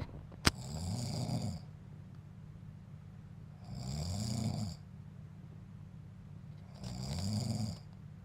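A sleeping man snoring: three long snores about three seconds apart, each rising and then falling in pitch, over a steady low hum. A single sharp click comes just before the first snore.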